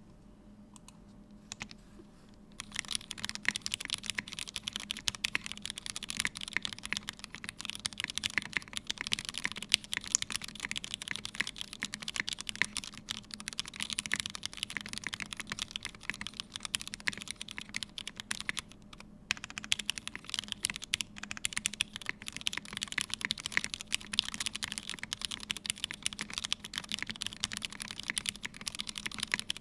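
Mechanical keyboard typing on a Sofia by Nixstudio with a brass plate, lubed and filmed Hyperglide Black linear switches and CRP keycaps. Fast, continuous keystrokes begin about two and a half seconds in, with a short pause about two-thirds of the way through.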